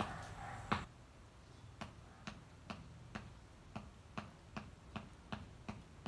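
A brief rustle ending in a sharp knock, then from about two seconds in a steady run of short, sharp knocks, about two to three a second: a hand tool chopping into garden soil.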